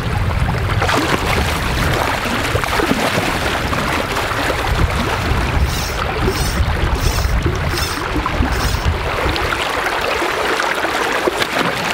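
River water rushing steadily, a loud, even noise, with a few short bursts of splashing hiss in the middle.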